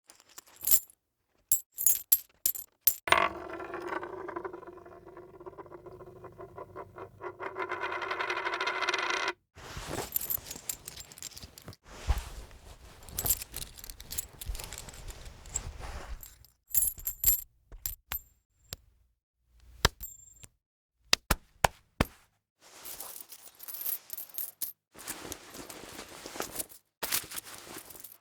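A run of separate short foley effects, mostly small hard clicks, clinks and taps, with short gaps between them. From about three seconds in, a rattling ring builds, its pulses growing louder and faster, and it cuts off suddenly a little after nine seconds in.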